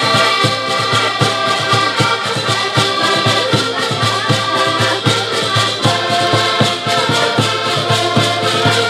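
Portuguese folk band playing an instrumental passage: several button accordions holding chords and melody over a fast, steady beat of bass drum and rattling percussion, with a small stringed instrument.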